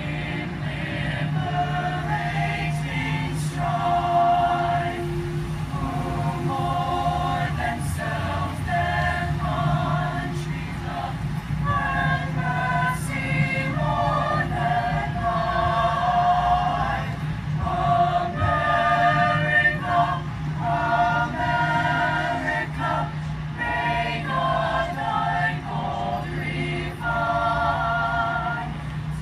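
A high school madrigal choir of mixed voices singing a song in several-part harmony.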